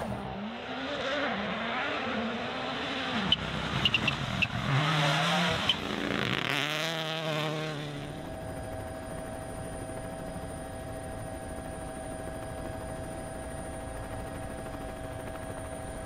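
Rally car engine revving hard up and down through gear changes on a gravel stage, with several sharp cracks. After about eight seconds it gives way to a quieter, steady hum with a few even tones.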